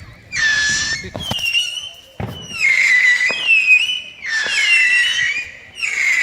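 Whistling fireworks: five shrill whistles of about a second each, some falling slightly in pitch, with a few sharp pops between them.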